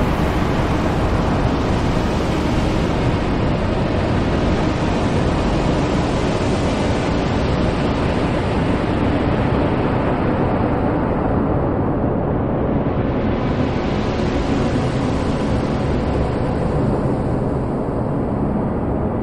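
Experimental noise music: a dense, steady wall of noise filling the lows through the highs. Its upper hiss thins about twelve seconds in, then comes back.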